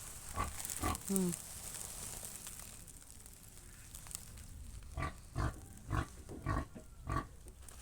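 Pig grunting: a few short grunts early on, then a run of short grunts about two a second from around five seconds in.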